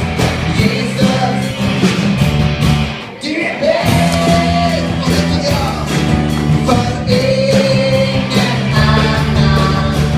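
Live rock-style band music with singing: a steady bass line, drums and held vocal notes, with a short drop in the music about three seconds in.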